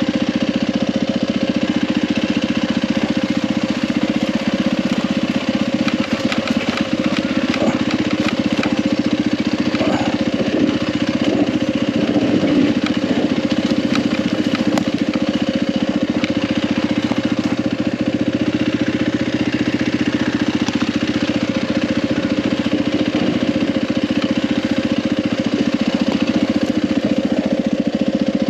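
2020 Yamaha WR450F's single-cylinder four-stroke engine running at steady revs as the dirt bike rolls over a rocky trail. Scattered short knocks come through in the first half.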